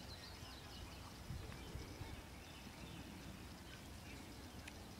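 Faint, soft hoofbeats of a yearling pony walking on grass, with a few faint bird chirps.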